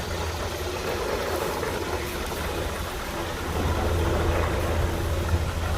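Steady low mechanical hum with an even rushing noise over it, growing slightly louder about four seconds in.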